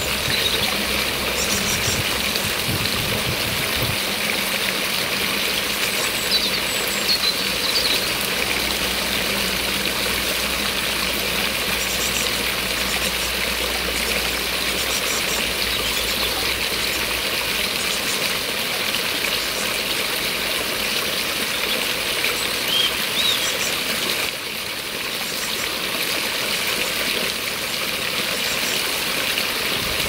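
Water from a cast iron garden pump's spout falling into a stone bird-bath bowl, splashing and trickling steadily, dipping slightly in level about two-thirds of the way through.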